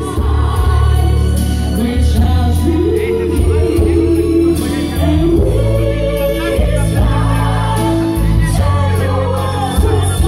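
Pop song performed by a band, with female singers over drums and a steady bass line.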